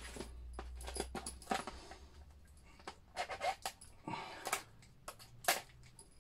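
Stiff clear plastic blister pack being handled and worked at with a small screwdriver: irregular clicks and crinkles of the plastic.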